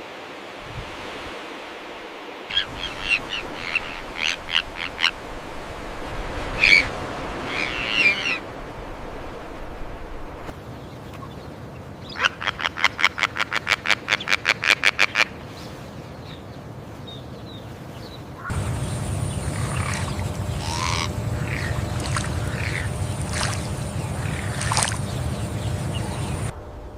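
Calls of several different birds in turn: scattered chirps and squawks, then a quick even run of about five notes a second lasting some three seconds, then more calls over a steady low background noise.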